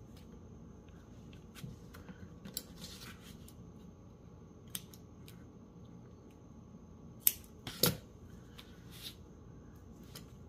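Double-sided craft tape being pulled off its roll and pressed onto a paper strip, small rustles and clicks, then two sharp scissor snips close together about seven to eight seconds in, cutting the tape.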